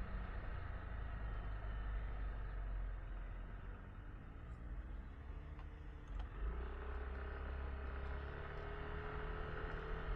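Yamaha Tricity 155 scooter's single-cylinder engine running on the move, its pitch falling as it slows about four to six seconds in, then rising slowly as it pulls away again, over a low rumble.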